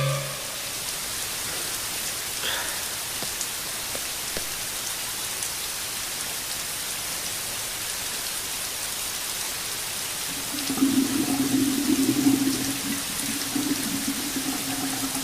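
A steady hiss of noise, like rain or running water, with faint scattered ticks; about ten seconds in a low wavering tone comes in over it.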